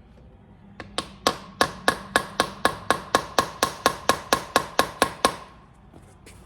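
Hammer striking metal in a fast, even series, about four blows a second, each with a short metallic ring; the blows start about a second in and stop a little after five seconds.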